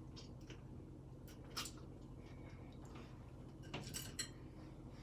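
Faint handling sounds of a wooden skewer being worked through a raw mackerel in a tub: light clicks and taps, one about a second and a half in, then three in quick succession about four seconds in, over a low steady hum.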